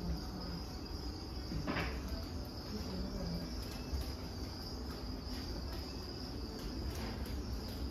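Crickets chirping in a steady, unbroken high-pitched trill over a low background hum, with one brief click a little under two seconds in.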